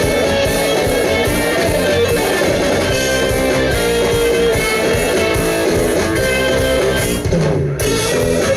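Instrumental passage of a song, carried by guitar with strumming, with the high end briefly thinning out near the end.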